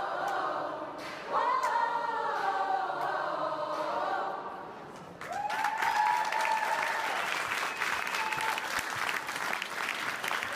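A large amateur choir singing in harmony, ending on a long held chord about five seconds in. As the song ends, a crowd breaks into applause that carries on to the end.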